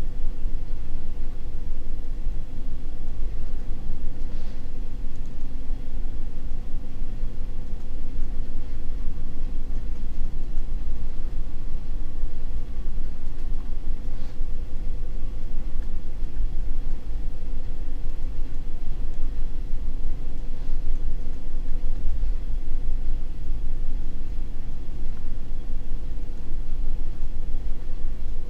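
Steady low background rumble with a steady hum above it, unchanging throughout. A few faint ticks come through, about four, fourteen and twenty-one seconds in.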